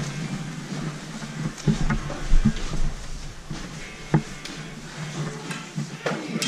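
Hockey gear being handled close to a helmet-mounted camera: rustling with a few sharp knocks and thumps. The loudest knock comes about two and a half seconds in, and another about four seconds in.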